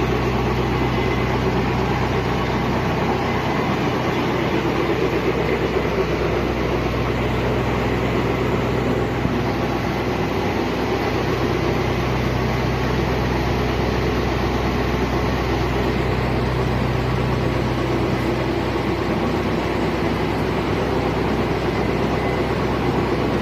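Large German engine lathe running steadily: a constant mechanical hum of motor and gearing, with no change in speed.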